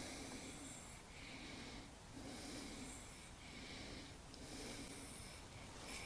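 A man breathing close to the microphone, faint and steady, each breath in or out lasting about a second.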